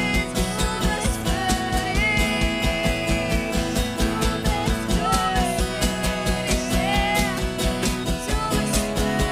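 Worship band music between sung lines: a steady drum beat under guitar and held chords, with a melody line gliding above it.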